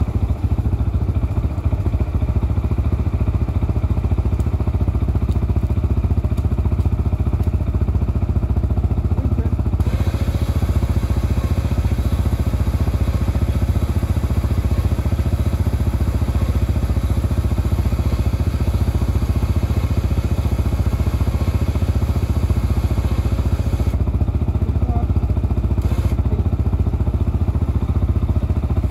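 CFMoto CForce ATV engine idling steadily.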